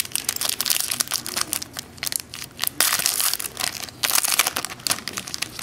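Foil wrapper of a Contenders football card pack being crinkled and torn open by hand: a busy run of sharp crackles and rustling.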